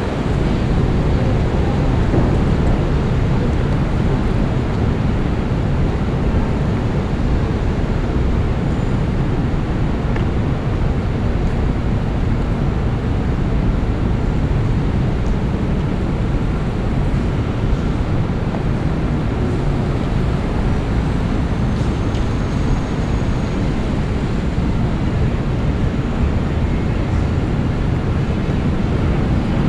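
Steady city street noise: a continuous low traffic rumble over wet streets, with no distinct events standing out.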